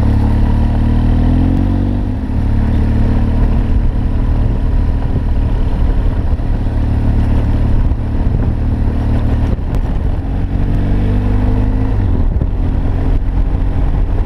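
Motorcycle engine running while riding, its pitch rising as it accelerates over the first two seconds and again about ten seconds in.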